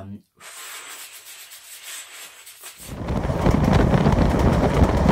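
Wind buffeting a phone's built-in microphone on a moving train: a quieter hiss at first, then a loud, low rumble that sets in about three seconds in.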